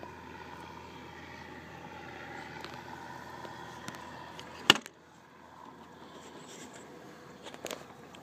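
A steady low hum, broken by one loud, sharp knock about halfway through, after which it is quieter; two lighter knocks come near the end.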